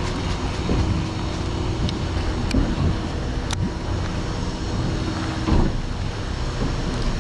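Boat engine running steadily under wind on the microphone, with two sharp clicks in the middle.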